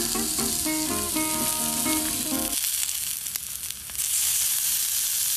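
Background music for the first two and a half seconds, then marinated meat sizzling steadily on a hot griddle over campfire coals. The sizzle swells about four seconds in.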